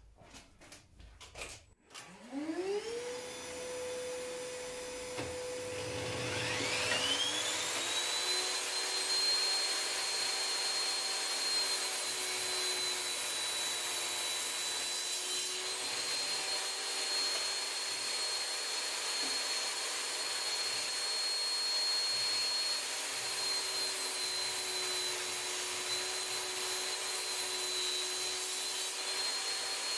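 Einhell cordless wet-and-dry vacuum switched on about two seconds in, its motor whine rising in pitch as it spins up. A second, higher whine rises in about five seconds in, and both then run steadily.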